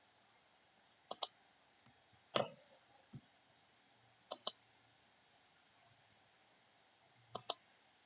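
Computer mouse clicks: three quick double-clicks a few seconds apart, with a louder single click and a faint one between the first two.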